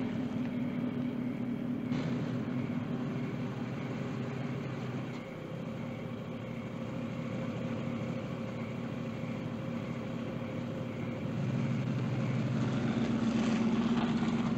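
A police car's engine running steadily at low speed. It grows louder about twelve seconds in as the car comes close.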